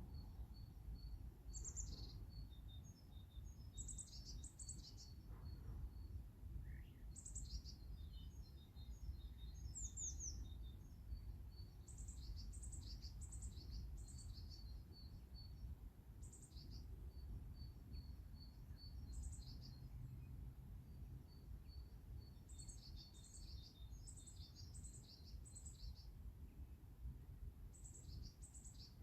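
Faint small songbirds chirping and singing: thin high notes, short trills and runs of quick pips come in clusters throughout, over a steady low rumble.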